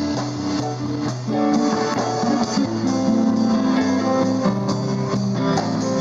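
Live four-piece band playing: electric guitar over keyboard, a second guitar and drums, with a moving bass line under steady held notes.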